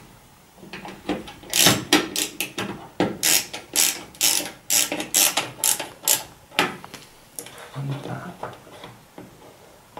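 A screwdriver turning a screw back into the LCD TV's metal chassis: a quick run of clicks, about four a second, for some five seconds, stopping about two-thirds of the way through, followed by fainter handling sounds.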